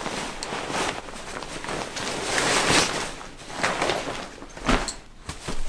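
Nylon backpack and stuff-sack fabric rustling and scraping in uneven surges as a packed sleeping bag in its stuff sack is pulled out of the pack, with a short soft thump near the end.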